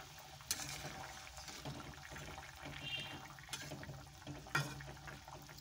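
Thin fish curry bubbling gently in a kadai, with a few light clicks of a spatula against the pan.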